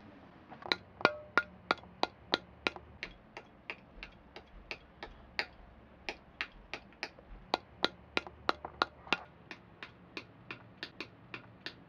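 A long run of sharp, wooden-sounding taps or clicks, about three or four a second at uneven spacing.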